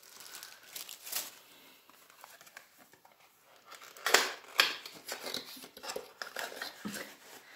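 A small cardboard box being opened by hand, with its packaging scraped, rustled and crinkled in an irregular run of handling noises that is busiest about four seconds in.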